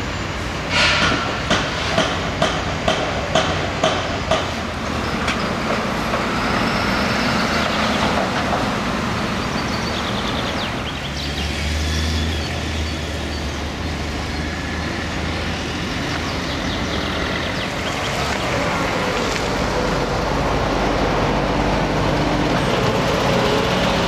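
Building-site noise: about eight sharp metallic knocks a bit under half a second apart in the first few seconds, then a steady rumble of machinery and traffic, with a deep engine drone about halfway through.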